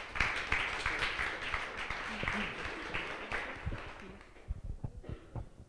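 Audience applauding, dying away after about four seconds, followed by a few scattered knocks and taps.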